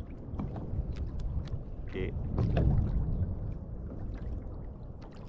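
Sea water lapping and splashing against a plastic kayak hull, with scattered small clicks and a low rumble that swells about two and a half seconds in.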